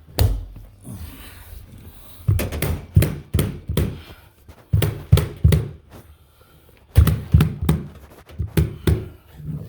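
A series of sharp thuds and knocks, in clusters of several hits a second or so apart, with short pauses between the clusters.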